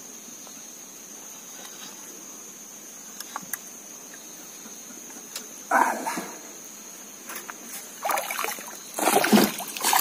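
A hooked fish splashing at the surface beside a wooden canoe: a short loud splash about six seconds in, then a run of louder splashes near the end. A steady high-pitched whine runs faintly underneath.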